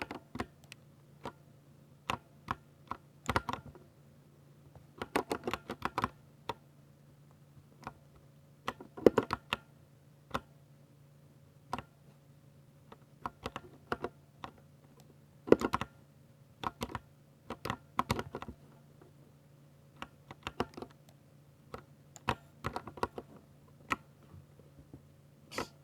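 Typing on a Ducky 60% mechanical keyboard with silver switches: quick runs of key clicks in uneven bursts, separated by short pauses, with a few heavier strokes standing out.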